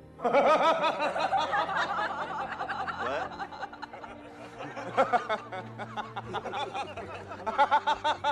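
A man laughing, with a long chuckling laugh at the start and another burst near the end, and some talk in between, over a low steady hum.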